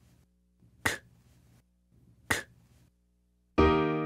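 A voice saying the phonics sound of the letter Q, a short unvoiced 'k', twice about a second and a half apart. Electric piano chords start near the end.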